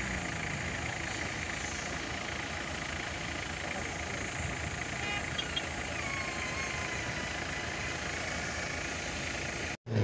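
Off-road 4x4's engine running at low revs under a steady, even outdoor noise, with no sudden events.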